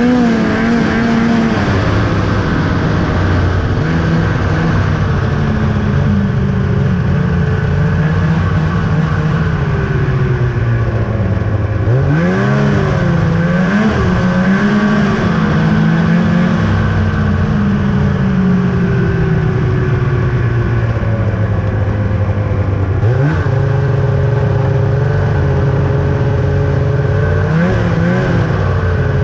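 The 2000 Ski-Doo Summit 800 snowmobile's two-stroke twin engine running under way. Its pitch dips and climbs back several times, about twelve seconds in, again a little past the middle, and near the end, as the throttle is eased off and reopened.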